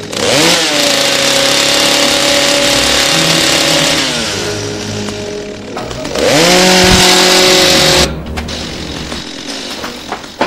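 Chainsaw engine revving up hard, holding at full throttle, then dropping back around four seconds in; it revs up again near six seconds and cuts off suddenly at eight seconds.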